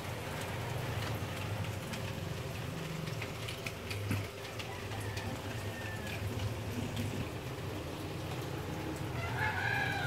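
Water from a garden sprinkler pattering steadily on leaves. Near the end a bird gives one long call.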